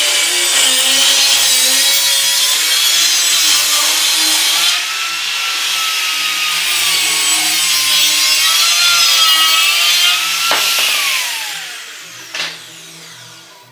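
High-speed electric power tool running under load on the stainless steel pipe, its motor pitch wavering as pressure changes. It is switched off about eleven seconds in and its pitch falls as it winds down, followed by a single click.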